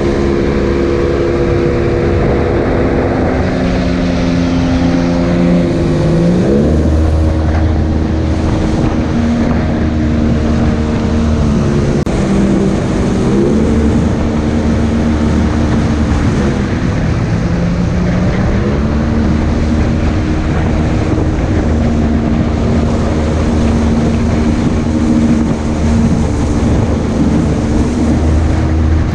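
Outboard jet boat engine running at speed, its revs shifting up and down several times, over the rush of water and wind.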